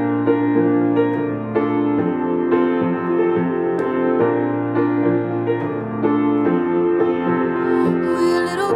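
Solo grand piano playing slow, sustained chords, with no singing.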